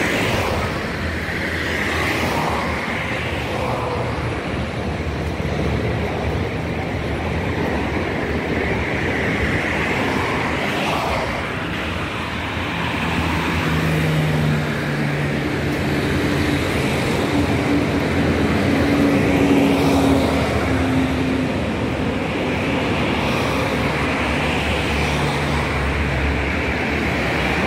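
Road traffic on a city street: cars driving past on the road alongside, a steady noise of engines and tyres, with one vehicle's engine drone standing out for several seconds in the middle.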